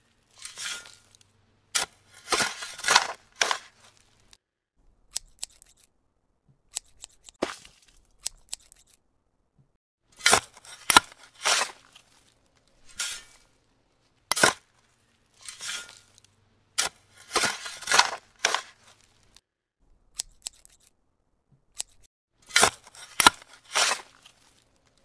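Bare stranded copper wire crackling and clicking as fingers bend and twist the strands together. It comes in short bursts a second or two apart, with sharp clicks among them.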